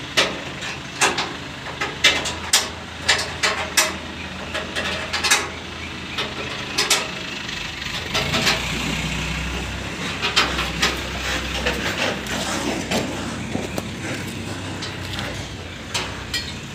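CNG compressor package running: a steady mechanical hum with many sharp, irregular clicks and knocks in the first several seconds. A deeper low rumble swells for a few seconds near the middle.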